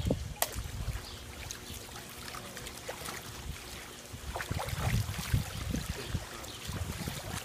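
Pool water sloshing and splashing around a foam float mat as a dog shifts her weight on it and kicks with her hind legs in the water, in irregular small splashes and knocks.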